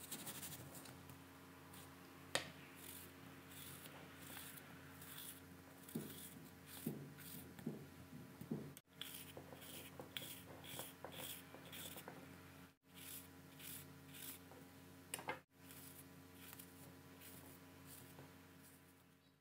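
Small fruit knives, one of them serrated, slicing through crisp peeled apple on a wooden cutting board: faint, quick cutting strokes about twice a second, with a few soft knocks of the blade on the board over a low steady hum.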